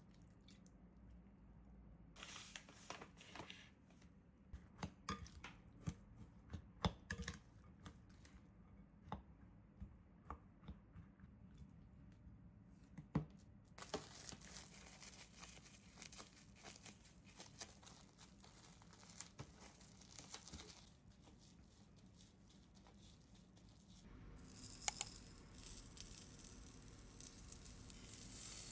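Quiet kitchen food preparation: scattered light clicks and knocks, then several seconds of tearing and crinkling. About four seconds from the end, food starts sizzling and keeps sizzling.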